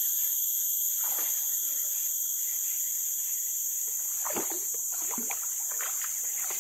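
Steady high-pitched drone of forest insects, with a few splashes around four to six seconds in from a hooked baung catfish thrashing at the surface.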